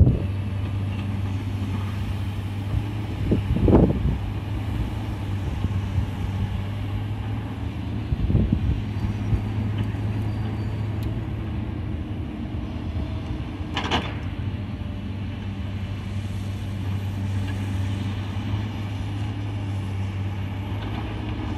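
A motor vehicle's engine running steadily with a low, even hum, with a few brief knocks about 4, 8 and 14 seconds in.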